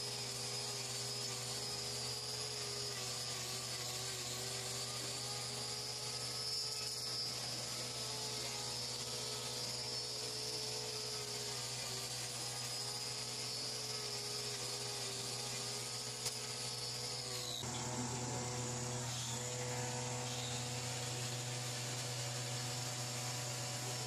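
Hand-held hoof grinder (angle grinder with a trimming disc) running against a cow's hoof, its whine sagging and recovering as it cuts; about 17 to 18 seconds in its pitch falls away and it stops. A steady low mechanical hum runs underneath.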